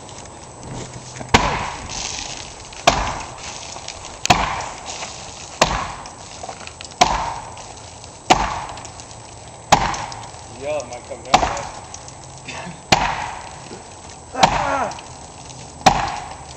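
Repeated heavy hammer blows on the wooden framing of a small shed being knocked apart, a sharp crack about every one and a half seconds, eleven strikes in all.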